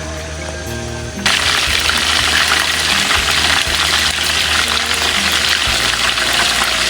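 Chicken thighs deep-frying in plenty of hot oil: a loud, steady sizzle that comes in suddenly about a second in.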